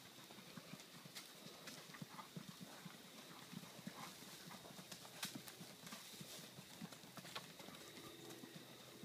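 Faint, rapid hoofbeats of a Paso Fino horse gaiting under saddle on sand footing: quick, closely spaced soft thuds.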